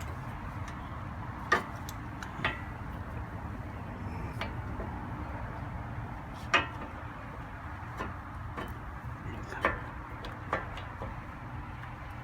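Scattered sharp metallic clicks and knocks, about five of them a few seconds apart, as brake pads and their metal hardware are handled and seated in a disc-brake caliper. A steady low hum runs underneath.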